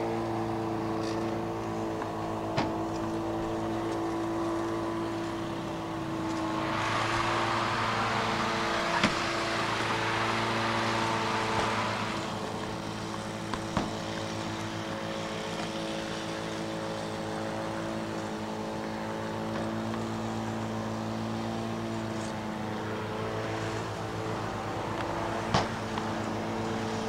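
Steady drone of a walk-behind lawn mower engine, with several sharp knocks of a tennis ball struck by a racket or bouncing on concrete. A broad rushing sound swells for about five seconds near the first third.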